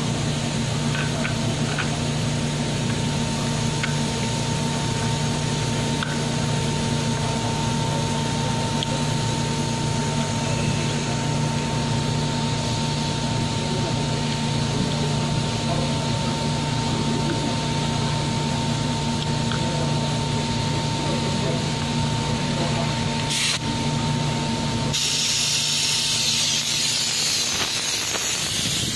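Steady hiss of compressed air feeding a drill stand's vacuum suction base, with a low hum, as an electric drill bores down into a wooden plank. About twenty-five seconds in the sound changes to a brighter, higher air hiss.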